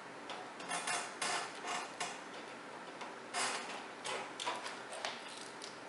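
Short clicks and rattles of a monitor cable's connector being handled and plugged into a port on the back of a computer case, coming in two clusters.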